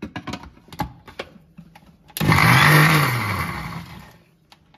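Electric mixer grinder with a steel jar run in one short pulse on coarse onion chutney: the motor whirs up suddenly, the blades chop for about a second, then it winds down and fades over the next second. This is a final pulse to break up the green chilli pieces still left coarse. A few light knocks and clicks come before it as the jar is handled on the base.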